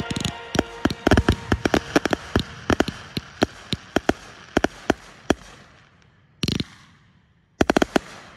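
Aerial firework shells bursting overhead: a rapid barrage of sharp bangs with a rumbling echo between them, thinning out after about five seconds, then two short clusters of quick bangs at about six and a half seconds and near the end.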